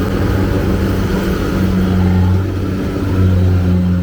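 Kubota DC-70 combine harvester's engine running steadily, a low hum of constant pitch.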